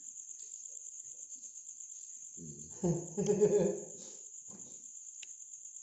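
Steady high trilling of crickets. A person's voice cuts in briefly about halfway through, the loudest sound here, and there is a single light click near the end.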